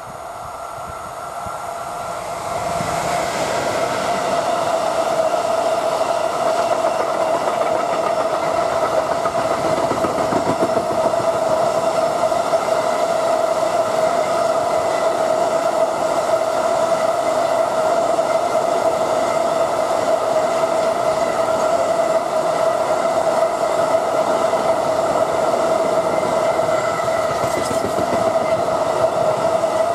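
Intermodal freight train of tank containers on flat wagons, hauled by a Siemens Vectron electric locomotive, running past close by. The sound grows louder over the first four seconds as the train arrives, then the wagons keep up a steady rolling rumble with wheel clatter and a constant whine from wheels on rail.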